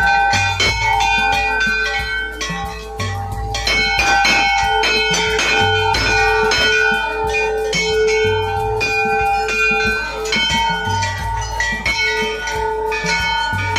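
Large hanging brass temple bells struck over and over by hand, several strikes a second, their ringing overlapping into a continuous clangour.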